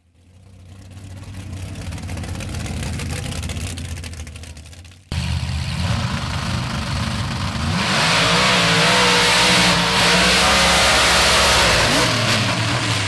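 Lifted 4x4 mud truck's engine revving hard at high throttle as it drives through a mud pit, its pitch rising and falling, louder from about eight seconds in. Before that, a steadier engine sound fades in and breaks off suddenly about five seconds in.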